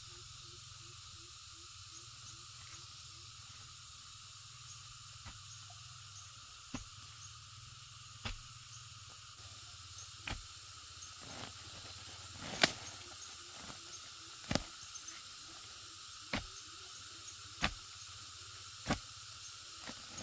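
A long wooden digging pole jabbed into soil and fern roots, about nine sharp strikes every one and a half to two seconds from about a third of the way in, the one a little past the middle the loudest. Under it runs a steady high hiss of insects.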